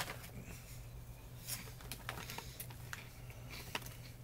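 A few faint, separate crunches and clicks of baked cheese puffs being eaten, over a steady low hum.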